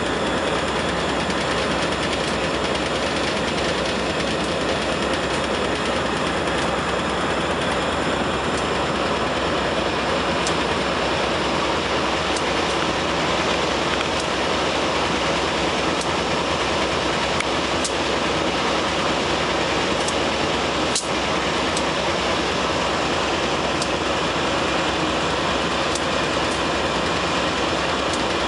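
Container train's freight cars rolling past: a steady rumble of wheels on rail, with a few faint sharp clicks.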